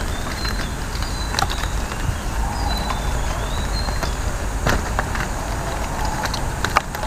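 Coconut-leaf strips rustling and giving sharp clicks and snaps as they are woven by hand, over a steady low rumble.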